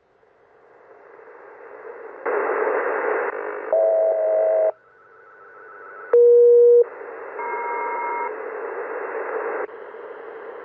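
Icom IC-M802 marine HF transceiver's receiver audio as it is tuned across the bands: hiss and static that cuts out as it is switched, then builds back up and changes abruptly with each new frequency. Short steady tones come in now and then, the loudest about six seconds in.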